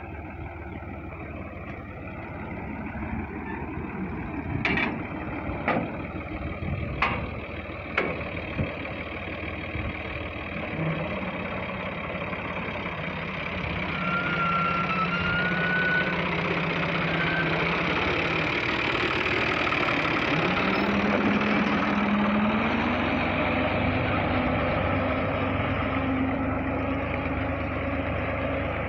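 Diesel tractor engine running steadily while pulling a seed drill through ploughed soil, with four sharp knocks about five to eight seconds in. Past the middle, the engine note rises as it speeds up a little.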